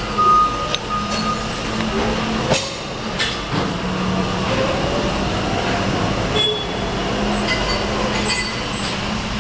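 A few sharp metal clinks as a steel T-handle and lock handle are seated on a mud gate valve's stem, over a steady workshop hum.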